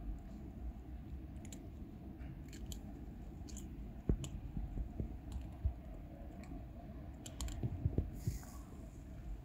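Cats crunching dry kibble: scattered small crisp clicks of chewing over a steady low background rumble.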